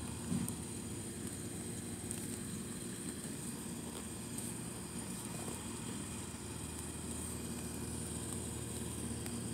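Steady low mechanical hum with a faint high hiss over it, and one short low sound about a third of a second in.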